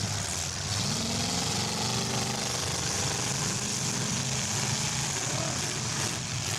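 Several demolition derby cars' engines running together, revving up and down, over a steady hiss.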